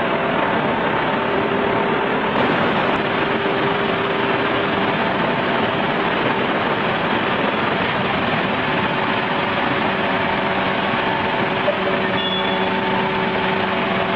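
Steady machinery noise in an AAC block production hall: a dense, even hiss with faint motor hums that fade out and come back.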